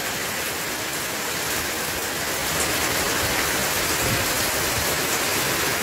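Heavy rain pouring down in a steady downpour, growing slightly louder about two seconds in.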